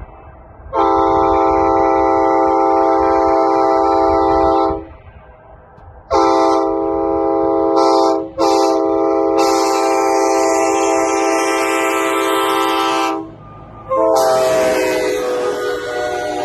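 Nathan K5HA five-chime train horn blowing a series of long chord blasts separated by short gaps. The last blast, about 14 seconds in, wavers in pitch as it opens.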